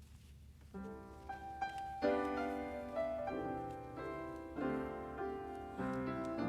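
Piano playing a chordal introduction to a hymn, starting about a second in after a quiet moment.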